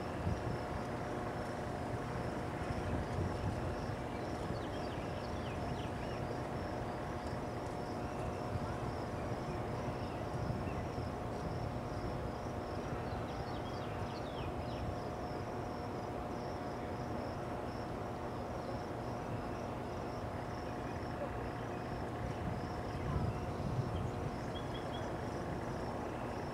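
Crickets trilling in a steady, fast-pulsing chorus over a low steady rumble and a faint hum, with a few faint bird chirps scattered through.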